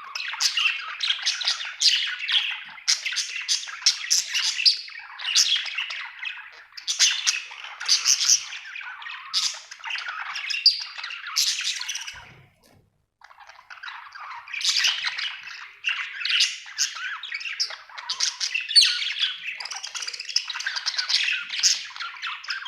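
Budgerigar chattering and warbling with rapid chirps and squawks, broken by a pause of about a second midway.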